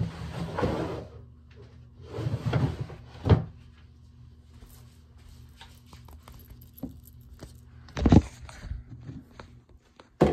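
Rustling and several sharp knocks from a phone being handled and moved close to its microphone, over a steady low hum.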